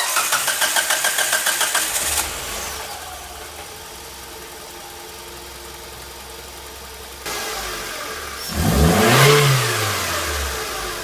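Mitsubishi Lancer CS3 engine, its throttle body freshly cleaned. It turns over with rapid even pulses for about two seconds, then settles to a steady idle. Near the end it is revved once, the pitch rising and falling back.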